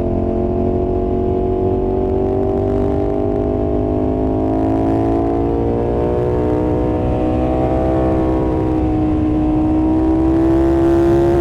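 2020 KTM 1290 Super Duke R's V-twin engine pulling under throttle, its pitch climbing slowly, easing slightly about eight seconds in, then climbing again, over a low rumble of wind and road.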